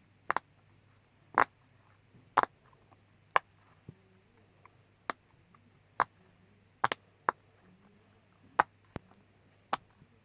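Bubbles of a homemade pop-it fidget toy being pressed in: about a dozen sharp pops, roughly one a second, some in quick pairs.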